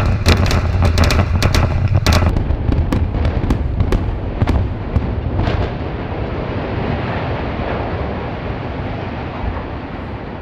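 Explosive demolition charges felling a smokestack: a rapid string of sharp cracks and bangs, dense for the first two seconds and thinning out over the next few, followed by a steady rumbling noise that slowly fades.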